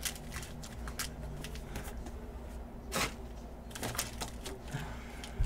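A stack of sealed foil trading-card packs being handled and squared in the hands: light rustling of the wrappers with scattered small clicks, and one sharper click about three seconds in.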